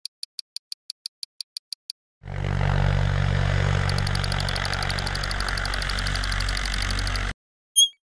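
Cartoon mechanical sound effects for a transforming level-crossing machine: about a dozen quick clicks, then a heavy machine-like rumble lasting about five seconds with a fast ticking over its second half, cutting off suddenly, and a short high chime near the end.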